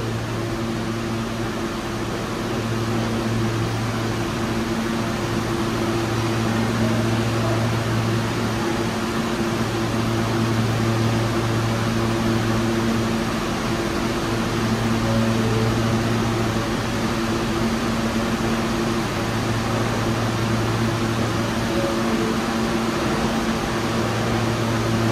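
Steady low mechanical hum over an even hiss, with a low buzz that swells and drops back every few seconds.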